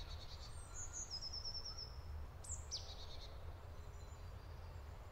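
Faint songbird calls: a quick run of short high notes, then a single sharp falling call, over a low steady rumble.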